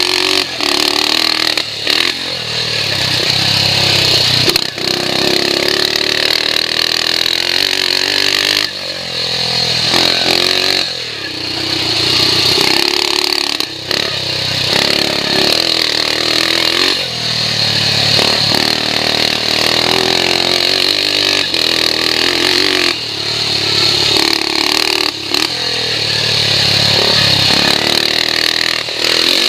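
BSA C15's 250 cc single-cylinder four-stroke engine being ridden hard, repeatedly revving up and dropping back as the throttle opens and closes and the gears change. Heard from the rider's goggle camera, with a steady hiss over it.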